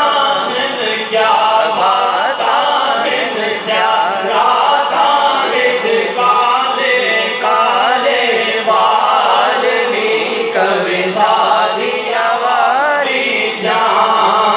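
A man's voice singing a naat, a devotional Urdu poem in praise of the Prophet, unaccompanied and amplified through a microphone, in long melodic phrases that rise and fall with short breaks for breath.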